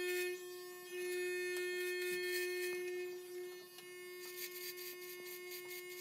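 Electric hair clippers running with a steady buzz while shaving hair close to the scalp.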